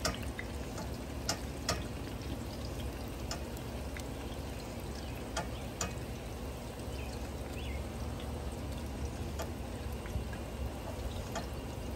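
Ground-beef patties on tortillas sizzling on a hot Blackstone gas flat-top griddle: a steady frying hiss with scattered small pops and crackles.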